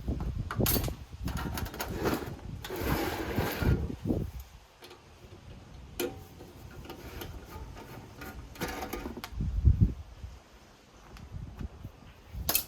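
Clicks, knocks and rattles of metal and plastic parts being handled during the disassembly of a NAS enclosure, with a single sharp click about six seconds in.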